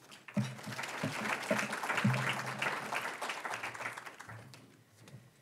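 Audience applauding, starting about half a second in and fading out over the last second or so.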